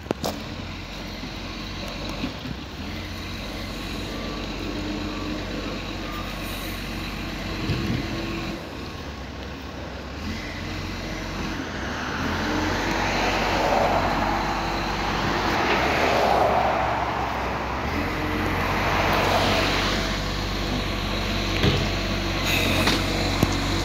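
Diesel engine of an Iveco ACCO garbage truck running in a steady low drone. In the second half, tyre noise from passing cars swells and fades three times, and a few short knocks come near the end.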